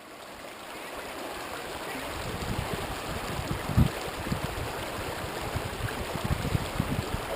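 Steady rushing water noise that fades in over the first couple of seconds, with low rumbling knocks from about two seconds in and one louder thump nearly four seconds in.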